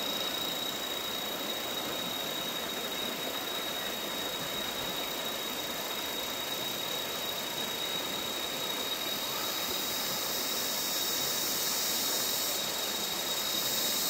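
Shallow stream running over rocks: a steady rush of water, with a thin, steady high-pitched tone above it.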